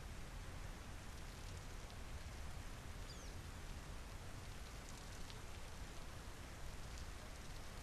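Steady rain falling, with scattered drop ticks on surfaces. A faint, high bird chirp comes about three seconds in.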